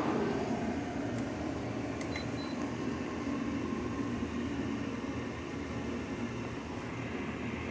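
LG 6000 BTU air conditioner running steadily just after being switched on, its fan blowing with an even whooshing hum.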